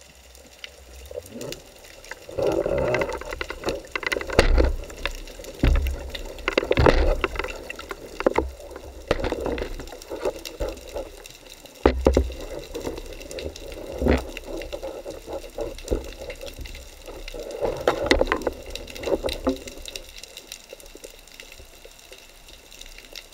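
Seawater sloshing and gurgling around a camera at the surface, in irregular bursts, with a few sharp knocks.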